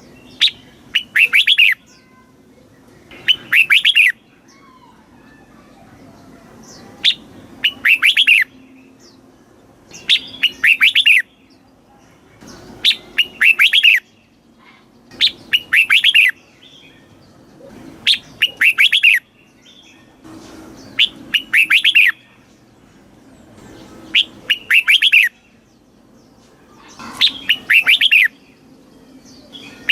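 Red-whiskered bulbul singing, repeating a short phrase of quick, bright notes about every two and a half seconds.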